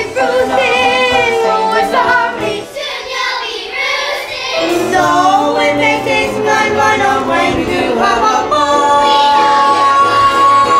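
Children's chorus singing a musical-theatre number with musical accompaniment, the voices moving through a sung line and then holding one long note for the last couple of seconds.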